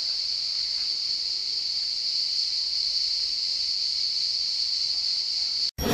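Cicadas droning in one steady, high-pitched, unbroken buzz that cuts off just before the end, where loud music starts.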